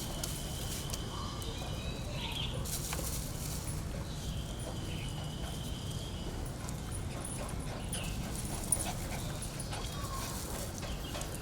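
Dogs whining, with thin high-pitched cries at the start and again about five seconds in, over a steady low rumble.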